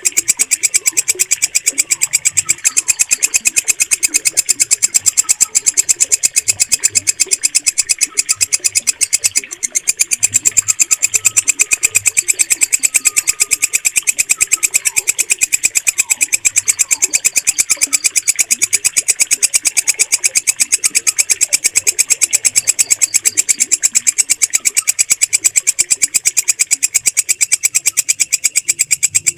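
Walang kecek, a green katydid, stridulating in a fast, steady train of shrill, even pulses, with a brief break about nine and a half seconds in. Faint bird calls sit underneath.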